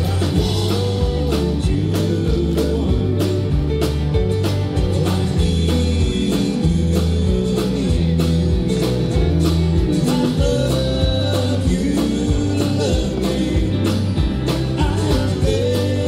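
Live country-rock band playing through a PA: bass guitar, electric guitars, pedal steel guitar and drums, with a steady beat.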